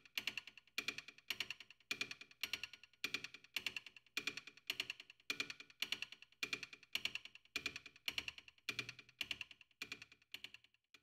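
A rattle shaken in a steady beat, a little under two strokes a second, each stroke a quick cluster of bright clicks; it stops abruptly near the end.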